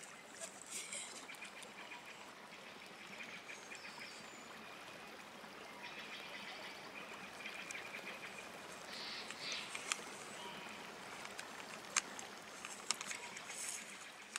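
Faint outdoor ambience: dry leaves rustling and crackling now and then, with a few short bird calls.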